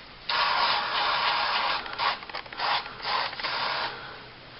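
Aerosol gun-cleaning solvent spray hissing: one long spray of about a second and a half, then several shorter bursts.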